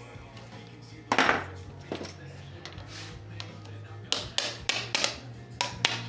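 Metal tools and shock parts clinking and knocking on a workbench during a shock teardown: a short noisy clatter about a second in, then a quick run of six or seven sharp metallic clicks near the end, over steady background music.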